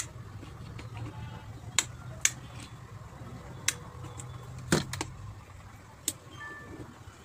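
Several sharp clicks of wall switches and a plug at a switchboard, a second or so apart, one near the middle a duller knock, as a charger is switched on at the wall; a low steady hum runs underneath.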